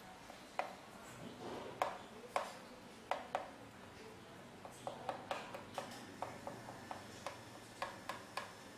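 Coconut cream boiling in a pan, with irregular sharp pops and clicks as a spatula breaks up curry paste and stirs it in.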